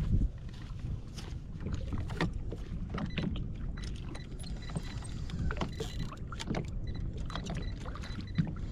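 Wind rumbling on the microphone and water lapping and slapping against the hull of an anchored small boat, with scattered light knocks.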